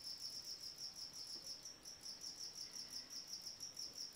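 A cricket chirping: a faint, high trill pulsing evenly several times a second.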